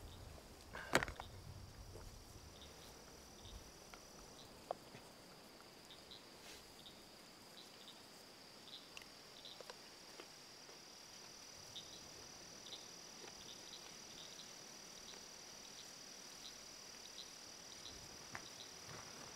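Faint, steady high trill of crickets at dusk, with scattered short high chirps over it. A sharp knock about a second in.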